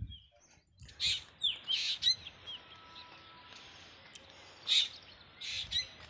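Wild birds calling: a few short, quick-gliding chirps about a second in, then more near the end, over faint outdoor background noise.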